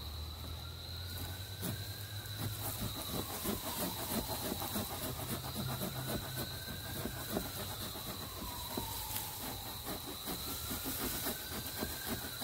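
Sheffield folding drywall/wood saw cutting into a tree trunk by hand: steady back-and-forth rasping of the teeth through the wood.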